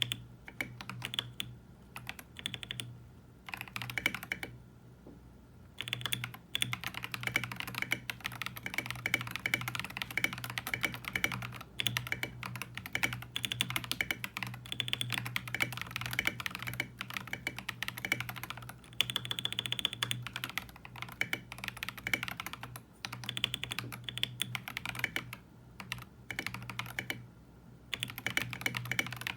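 Typing on a Monka 3075 Pro mechanical keyboard with XY.Studio Hutt switches: fast runs of keystroke clacks in bursts, broken by short pauses.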